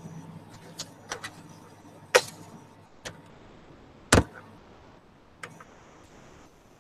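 Handling noise on a video-call computer's microphone: about six scattered clicks and knocks as the device is touched and moved. The loudest come about two and about four seconds in, the second with a dull thud.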